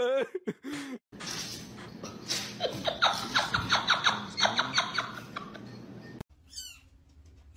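People laughing in quick, repeated bursts, over a steady background hiss for most of it; near the end come a few short, high rising squeaks.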